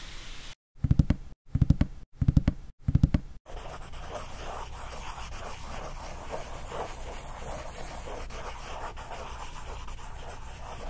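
Four short, loud, low buzzes, each cut off sharply, come in quick succession about a second in. Then a steady scratchy rubbing follows: a pencil scribbling on paper.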